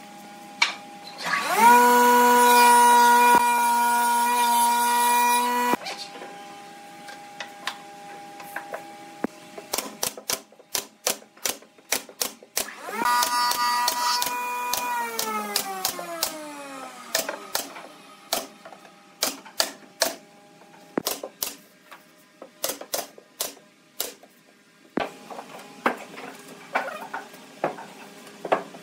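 A pneumatic nail gun firing a long run of sharp shots into pine boards, several a second, over the middle of the stretch. Near the start a power tool's motor hums steadily for about four seconds, and around the middle another motor hum falls in pitch as it runs down.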